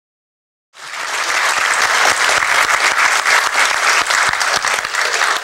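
Audience applauding, many hands clapping, starting abruptly under a second in.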